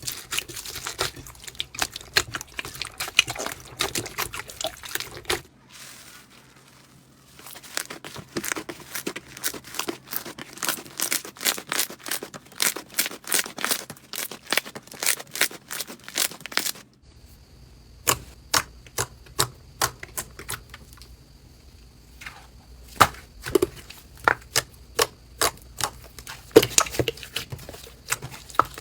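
Slime being squeezed and poked by hand, a quick run of small crackling clicks and pops with a short pause about six seconds in. About seventeen seconds in the clicks become slower, sharper and louder, over a faint steady high whine.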